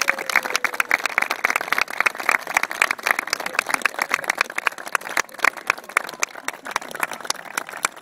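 Applause from a small crowd of wedding guests, many separate hand claps, thinning out a little in the last couple of seconds.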